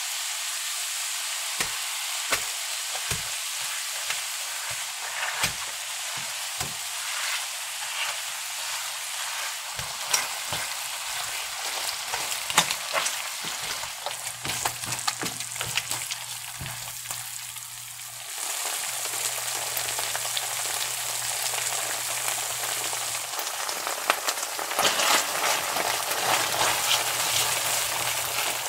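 Minced garlic sizzling in melted butter in a nonstick pan, with a spatula scraping and tapping against the pan as a block of cream cheese is mashed and stirred in. The sizzle is a steady hiss, with sharp taps, most of them in the first third and again near the end.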